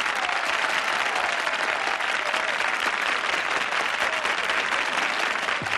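Studio audience applauding steadily at the close of a song.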